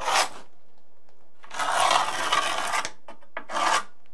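Carpenter's pencil scratching across concrete as it marks a line along the door threshold: a short stroke at the start, a longer stroke of about a second in the middle, and another short stroke near the end.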